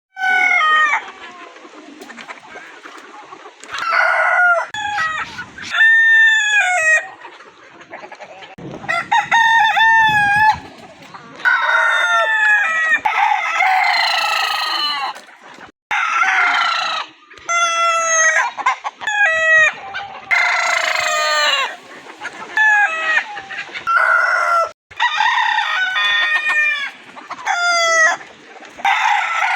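Roosters crowing one after another, many loud cock-a-doodle-doo calls, each with a pitch that rises and falls, with a few sudden breaks between crows.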